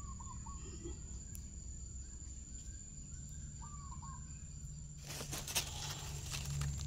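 Dry leaf litter rustling and crackling under hands from about five seconds in, while a mushroom is picked up from the forest floor. Before that, a bird gives a short three-note call twice, and a steady high insect buzz runs underneath.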